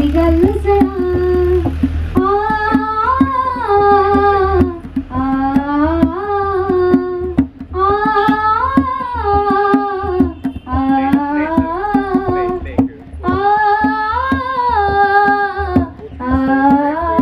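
A voice singing a Dogri folk song in about six long, ornamented phrases with short breaks between them, over a running pattern of percussion taps.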